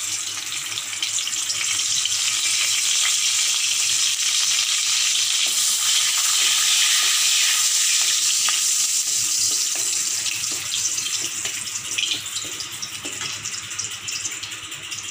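Bay leaves sizzling in hot oil in a wok: a steady hiss that builds over the first couple of seconds and eases near the end, with a few small crackles.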